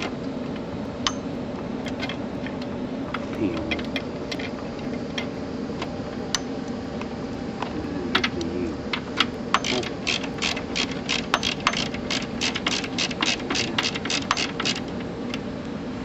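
Hand socket ratchet clicking as a bolt is turned on the tractor's transaxle: a few scattered clicks at first, then a fast, even run of clicks, about five a second, from about ten seconds in until near the end.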